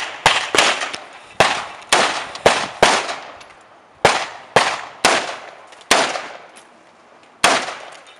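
AR-style semi-automatic carbine firing a string of about a dozen single shots, roughly two a second, each with a short echo off the range, with a pause of about a second and a half before one last shot near the end.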